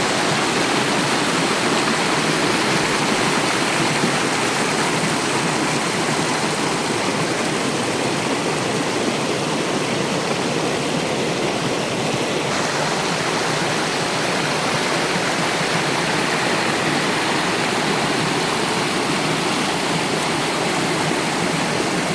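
Mountain stream pouring down a small waterfall, a steady loud rush of falling and splashing water.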